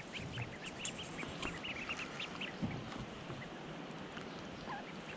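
A brood of mallard ducklings peeping: many short, high peeps, thickest in the first two or three seconds and thinning out toward the end.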